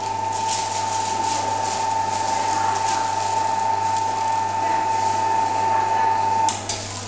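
Stainless-steel electric meat grinder running steadily with a constant humming tone as beef is pushed through it; the motor cuts off near the end.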